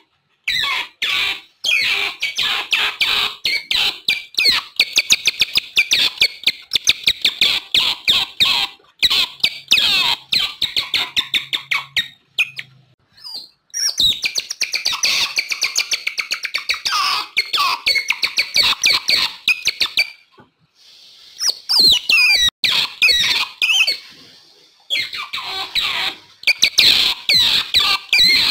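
Otters chirping and squeaking: rapid runs of high-pitched calls, broken by short pauses about halfway through and again about three quarters of the way in.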